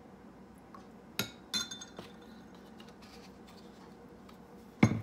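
A metal spoon clinks against glass twice, the second time with a short ringing, then a lighter tap. Near the end there is a louder, duller knock on the counter.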